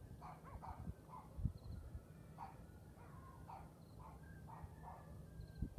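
Dogs barking and howling faintly, short calls coming every half second or so. A low thump about a second and a half in.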